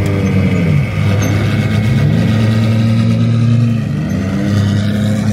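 Car engines running, the engine note rising and falling a few times over a steady low hum.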